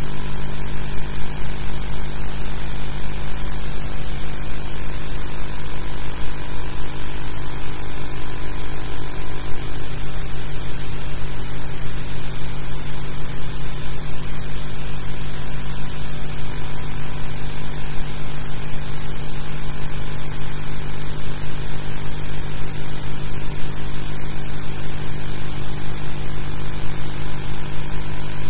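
A steady low hum under a constant hiss, unchanging throughout.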